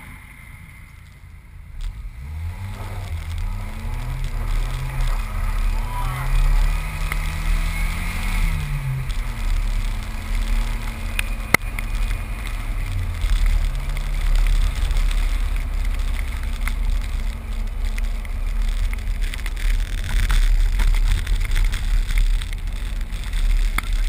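Jeep Wrangler engine pulling away from a stop and accelerating through several gears, its pitch climbing and dropping back with each shift, then running steadily at cruising speed. A low, steady rumble of wind and road noise on the outside-mounted camera runs underneath, and there is a single sharp click about midway.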